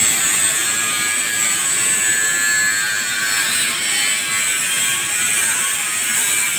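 TIG (GTAW) welding arc burning on a pipe joint as filler rod is fed in: a steady high hiss.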